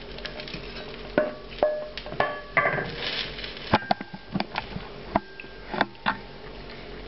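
A bowl clinking against a frying pan as cream sauce is poured in, then a wooden spatula stirring and scraping the sauce in the pan. It is a run of sharp knocks and clicks, some ringing briefly.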